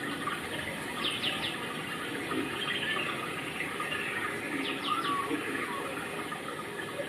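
Steady running-water noise with small birds chirping over it. There is a quick run of three high, falling notes about a second in, and another run near five seconds.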